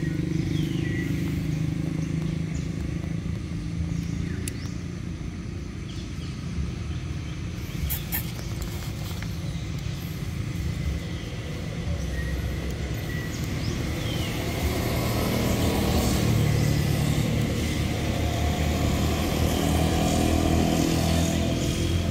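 Motor vehicle engine running steadily, a low hum that grows louder in the second half. A few brief high chirps and clicks sit on top.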